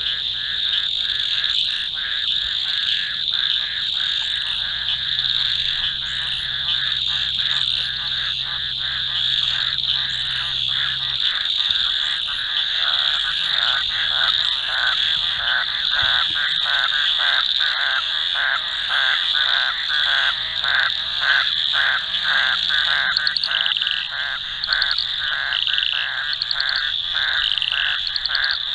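A dense chorus of frogs calling from a seasonal pan freshly filled with water: a continuous high-pitched trilling over a rapid pulsing of about four calls a second, with short chirps repeating every second or so above it.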